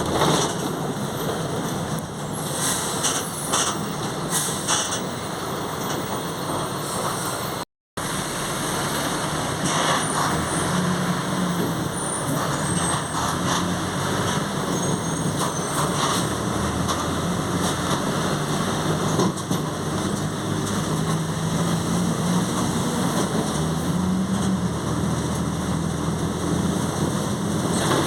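Mercedes-Benz OF 1722M bus with Marcopolo Torino body underway, heard from inside. Engine and drivetrain run with a low growl from the differential that shifts in pitch, and there are scattered clicks. The sound drops out completely for a moment a little before eight seconds in.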